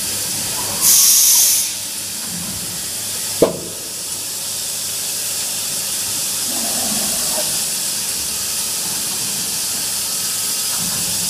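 CNC woodworking machine running with a steady high hiss, a short louder burst of hiss about a second in, and one sharp knock a little later.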